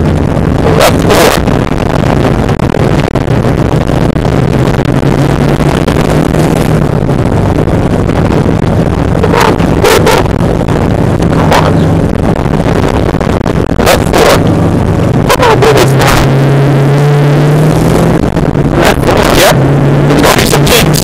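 A Subaru Impreza rally car's turbocharged flat-four engine (WRX swap) pulling hard on a gravel stage, heard from inside the cabin, its note stepping up and down with the gear changes and throttle. Several sharp knocks and clatters of gravel and rough road hitting the car come through over it.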